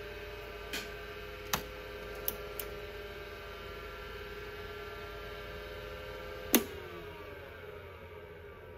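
Apple Widget 10 MB hard drive running with a steady whine and a few light clicks from its head mechanism. About six and a half seconds in, a sharp click, the head latch snapping shut, and the whine starts falling in pitch as the platters spin down.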